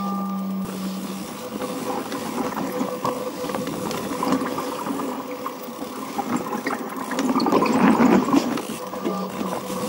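Off-road vehicle running along a rough trail, with rattling and crunching over the uneven ground; a steady hum stops about a second in, and the rattling is loudest around eight seconds in.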